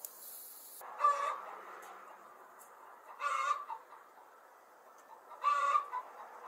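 Chickens calling: three short, loud calls about two seconds apart.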